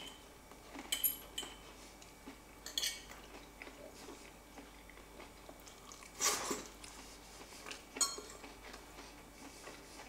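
Metal fork clinking and scraping on a ceramic plate while picking up food: a few light taps in the first three seconds and another near the end. About six seconds in there is a louder short noise as a forkful is taken into the mouth, then quiet chewing.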